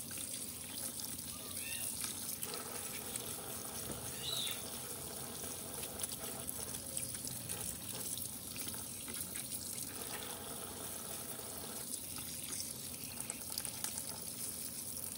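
Kitchen tap running steadily into a stainless-steel sink as a gutted fish is rinsed under the stream.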